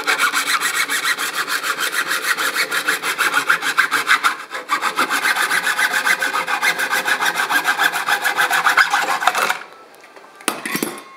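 Hacksaw cutting through the casing of a car-audio capacitor in rapid, even back-and-forth strokes. There is a short break about four and a half seconds in, and the sawing stops about a second and a half before the end, followed by a few light knocks.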